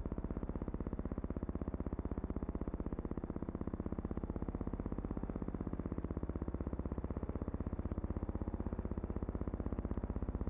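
A steady low hum with a fast, even pulse, unchanging throughout.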